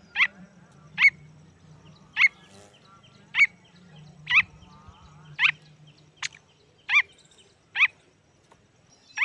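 A young grey francolin (desi teetar) calling: short, sharp single notes repeated about once a second.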